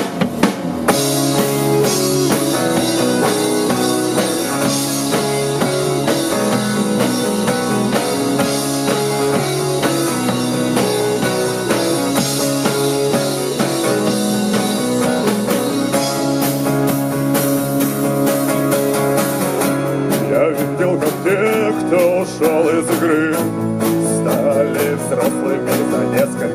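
Rock band playing live, unmixed: drum kit with cymbals, bass, electric guitar and strummed acoustic guitar in an instrumental intro. About 20 seconds in, the cymbals drop back and a sung melody comes in over the guitars.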